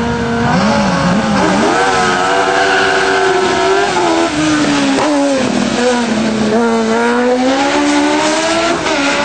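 Race car's engine held at steady revs on the start line, blipped briefly, then accelerating hard away, its pitch climbing and dropping sharply at each gear change.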